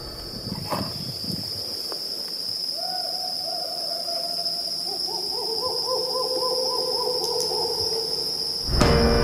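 Desert owl (Strix hadorami) hooting: one drawn-out hoot about three seconds in, then from about five seconds a fast run of short hoots on two pitches, one higher than the other.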